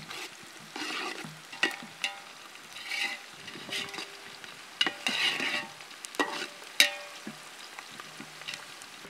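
Perforated metal skimmer stirring chopped onions and green chillies frying in a large metal cooking pot, scraping along the pot and knocking against its sides. Several sharp knocks set the pot ringing briefly, the loudest about seven seconds in.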